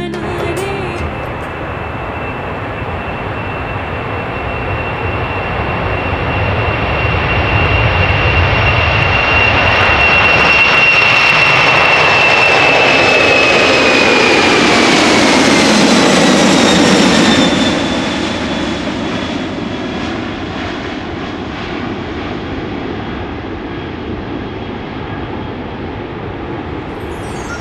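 Jet airliner passing overhead: a high engine whine over a rushing roar builds up to a peak, then the whine slides down in pitch as the aircraft goes by about two-thirds through, and the roar falls back to a steadier, quieter rush.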